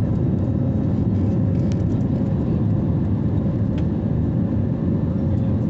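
Steady in-flight cabin noise of an Airbus A320neo shortly after takeoff: its Pratt & Whitney geared turbofan engines and the airflow make an even, deep rumble with a steady hum.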